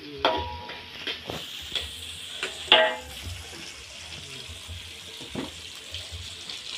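Ground spice paste for sayur lodeh sizzling as it starts to fry in a wok, the hiss coming up about a second in. A few knocks of pots and utensils, the sharpest nearly three seconds in.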